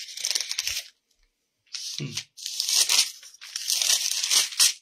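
Paper pages rustling and crinkling close to the microphone in several bursts, as a Bible is leafed through to find a passage, with a short hum about two seconds in.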